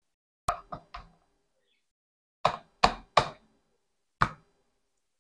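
A series of seven short, hard knocks: a terracotta strainer holding cloth-wrapped hung curd knocked against a plastic bowl as the curd is tipped out, three quick knocks, then three more, then a single one.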